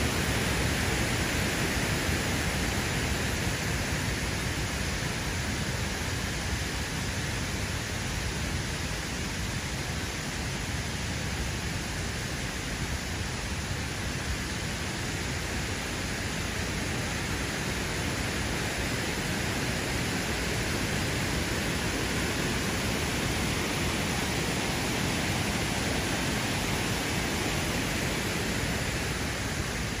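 Akerselva river water rushing past, a steady hiss that barely changes.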